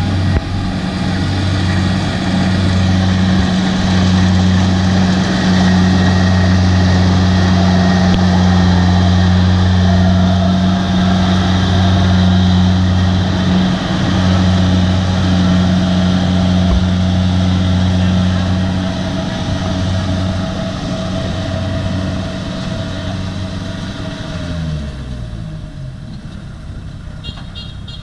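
Kubota DC70 rice combine harvester's diesel engine running steadily under load while cutting and threshing, a constant low hum. It grows fainter over the last few seconds as the machine moves away.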